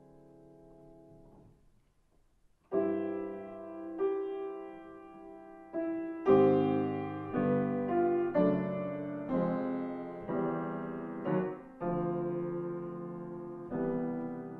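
Piano music: a held chord dies away into a short pause, then slow chords are struck one after another from about three seconds in, each ringing and fading.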